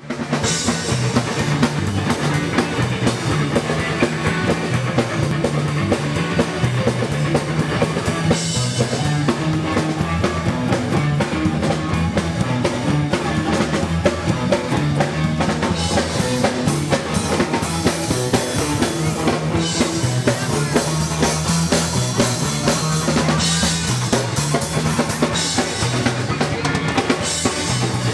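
Band music: a drum kit playing a steady beat over a bass line that steps between notes.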